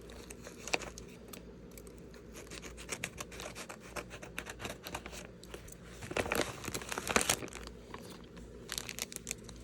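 A package being torn open by hand, its wrapping crinkling and crackling in a run of small sounds, with a louder stretch of rustling and tearing about six to seven seconds in.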